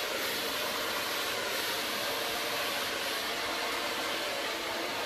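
CHI handheld hair dryer with a pik comb attachment blowing steadily at a constant speed, without a break.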